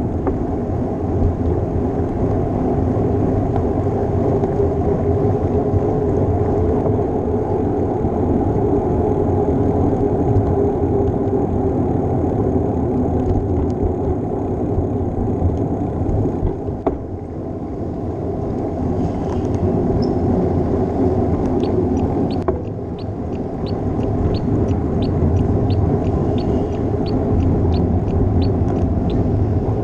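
Steady wind and road rumble picked up by a bicycle-mounted GoPro while riding. Two short clicks break in around the middle, and over the last third a run of light ticks comes at about two or three a second.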